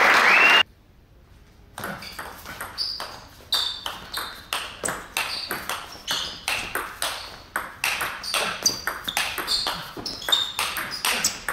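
Table tennis rally: the ball clicks sharply off bats and table in a steady back-and-forth of about two to three hits a second, each hit with a short ringing ping. It opens with a brief loud burst of noise that cuts off abruptly, followed by about a second of near quiet before the hits start.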